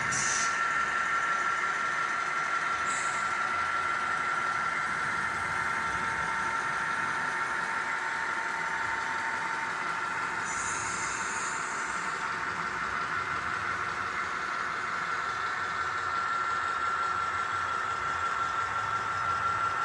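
HO scale model train running on its track: a steady whine over a constant rattly hiss, with brief high-pitched squeaks about three seconds in and again from about ten to twelve seconds in.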